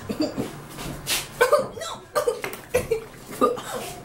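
Repeated coughing and sputtering from a boy choking on a dry mouthful of ground cinnamon, mixed with laughter. It comes as a string of short, sharp bursts about every half second.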